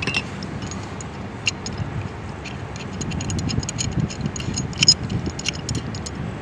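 Scattered light clicks and ticks of a metal wrench working on a PVC pipe union as it is tightened, coming thicker about five seconds in, over a low steady rumble.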